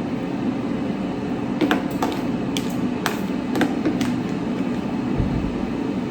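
A handful of light knocks and clicks of kitchen utensils against dishes or food containers while broccoli is portioned out, over a steady background hum.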